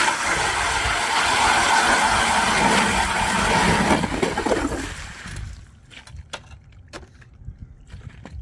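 Battery-powered electric ice auger drilling through lake ice: a steady motor whine with the blades grinding into about seven inches of solid ice under slush. It stops after about five seconds, followed by a few light knocks as the auger is lifted out and set down.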